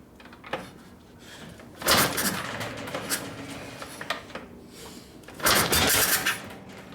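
1972 Harley-Davidson Ironhead Sportster engine being turned over twice with the choke on, each attempt a short mechanical burst that does not catch and run; the second attempt lasts longer.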